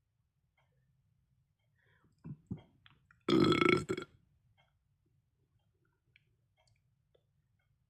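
A person burping: one loud, pitched belch lasting under a second, about three seconds in, preceded by two short, quieter sounds.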